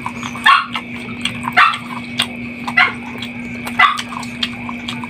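A dog barking four times, about a second apart, over a steady hum.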